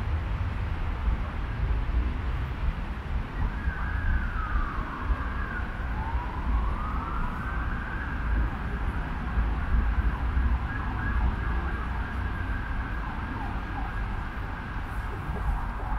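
An emergency vehicle siren that starts a few seconds in: its pitch falls slowly, rises again, then holds a high steady tone. Under it runs a low steady rumble.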